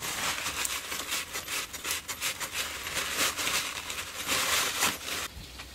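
Bicycle freehub pawls ratcheting dry, with no grease, as the freehub is turned: a fast, dense clicking that stops abruptly near the end.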